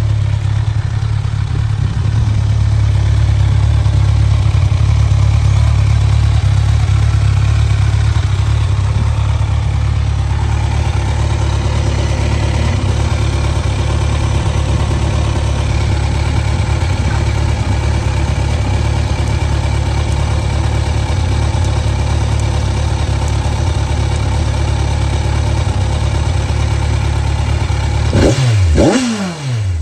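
2014 Kawasaki Ninja 1000 (ZX1000M) inline-four engine idling steadily, then one quick blip of the throttle near the end that rises and falls back to idle.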